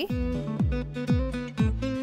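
Background music: plucked acoustic guitar over a steady beat.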